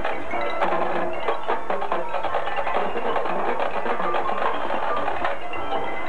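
Marching band playing its field show, with quick mallet-percussion notes from the front ensemble standing out over the winds.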